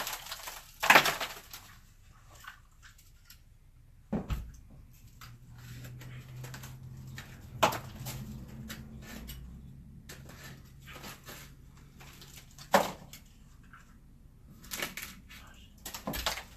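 A handful of scattered knocks and thumps in a small room, with a faint low hum for several seconds in the middle.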